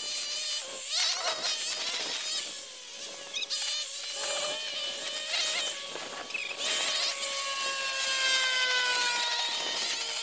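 Gas string trimmer running at high speed with a steady whine that slides slowly down in pitch over the last few seconds. Its Aero-Flex plastic blades whip through weeds in repeated noisy bursts.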